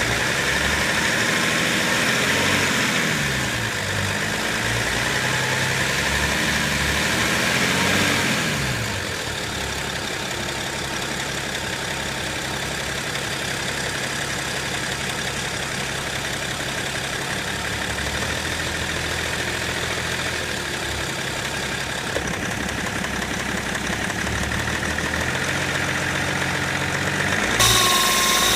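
BMW 535d twin-turbo straight-six diesel running with unsteady revs, its pitch rising and falling for the first several seconds, then settling. About a second before the end a new high whine comes in suddenly. The owner suspects a faulty, newly fitted torque converter.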